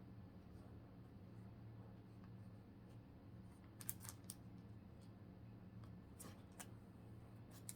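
Faint handling of Pokémon trading cards: a few brief scrapes and clicks as cards slide over one another, over a low steady hum of room tone.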